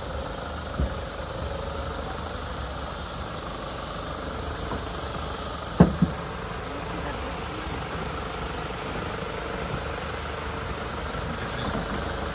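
Safari vehicle's engine idling steadily, with a short knock about a second in and a sharper double knock near the middle.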